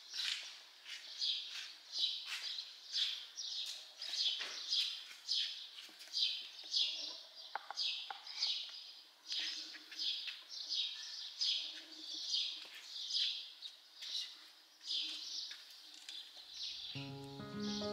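A small bird chirping over and over, short high chirps that fall in pitch, about two a second. Background music comes in near the end.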